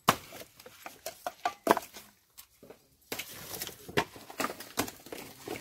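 Dry coconut husks and shells being lifted and tossed off a pile by hand: a string of irregular hollow knocks and clatters, with a busier stretch of rustling and knocking from about halfway through.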